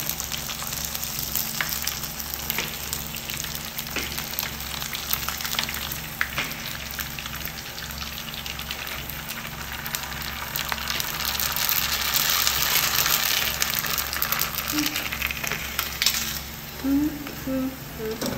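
Prawn crackers deep-frying in hot oil as they puff up: a steady sizzle full of small crackling pops, growing louder about two-thirds of the way in and then dropping away suddenly near the end.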